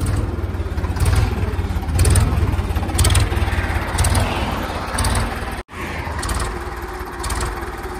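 Ford 3600 tractor's three-cylinder engine running under way with a pulsing exhaust beat and some rattle, which the owner puts down to loose fittings not yet finished. About halfway through the sound cuts off abruptly and resumes as the engine running more steadily, stationary.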